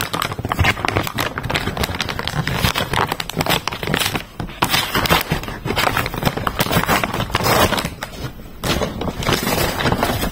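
Amazon parcel packaging being torn open and handled, with dense irregular crackling and scraping.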